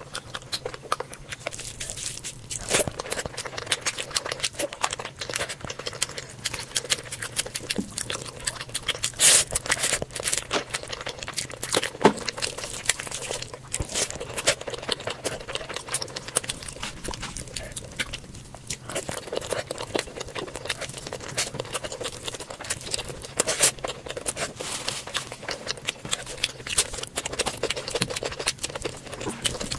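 Close-miked sound of a bare hand squeezing and mixing fried rice with curry gravy: a dense, continuous run of wet squishes and small crackles.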